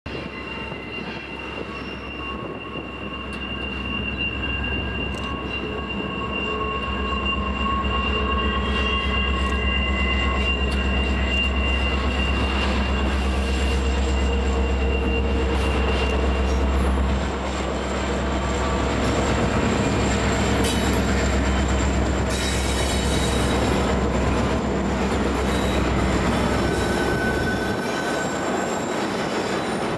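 Diesel freight locomotive running under power as it approaches and passes, its low engine rumble growing louder and then dropping away near the end. Behind it, double-stack container cars roll by on a curve, with wheel flanges squealing in high, steady tones.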